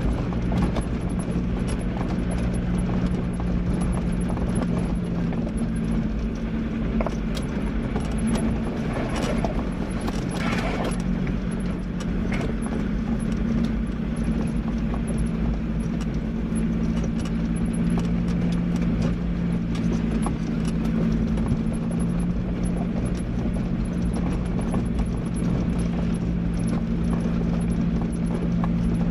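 A 4x4's engine running steadily at low speed on a rough gravel track, heard from inside the vehicle, with stones crunching and knocking under the tyres in a constant patter of clicks. There is a short patch of louder rushing about ten seconds in.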